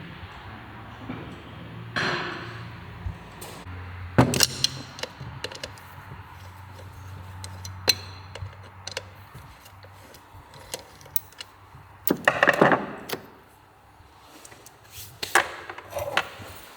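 Workshop handling sounds: hand tools and engine parts knocking and clinking, with a few louder short scraping or rattling bursts.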